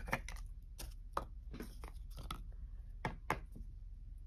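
Small taps, clicks and scrapes of plastic toy figures and a folded paper prop being handled and set down on a wooden table, scattered irregularly, with the sharpest taps just after the start and about three seconds in.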